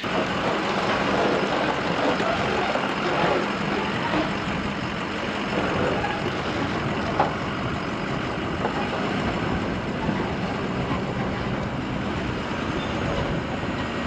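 Pickup truck towing a loaded tractor trailer along a dirt road: a steady hum from the truck's engine under tyre rumble and wind noise, heard through a camera mounted on the outside of the cab. One brief knock about seven seconds in.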